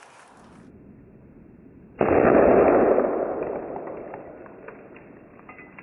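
One loud bang from a Fithops trip alarm's cap firing and bursting a ping pong ball full of airsoft BBs, about two seconds in, fading away slowly over the next few seconds.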